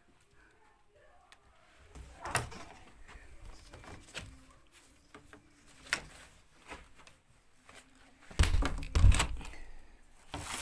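A series of knocks and thumps, with a cluster about two seconds in and the loudest, deep thumps about eight and a half seconds in.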